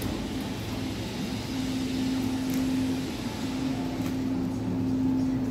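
Supermarket background noise: a steady low hum and rumble, with a few faint rattling ticks, as a shopping cart is pushed along the tiled floor past refrigerated display cases.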